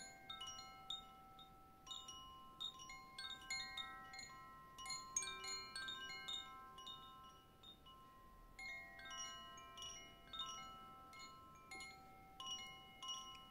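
Wind chimes ringing softly: many irregular, overlapping metallic strikes at several high pitches, each left ringing.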